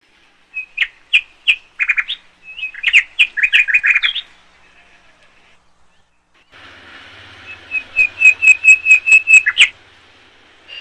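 A small bird chirping in quick runs of short, sharp, high calls. There are two bursts, the first in the opening seconds and the second about two-thirds of the way through, with a pause between them.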